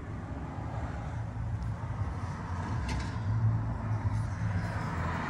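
Low, steady rumble of a Chevrolet Silverado 2500 pickup's engine idling, heard from inside the cab, with a faint click about three seconds in.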